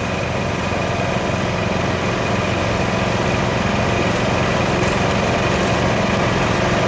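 Small garden tractor engine running steadily under load on throttle.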